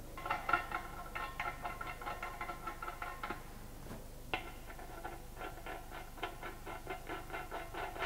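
Rapid light metallic clicking and rattling as the nuts are turned by hand onto the threaded studs clamping the cover plate of a Los Angeles abrasion machine's steel drum, with the drum ringing faintly under the clicks. The clicking stops for about a second near the middle, then starts again.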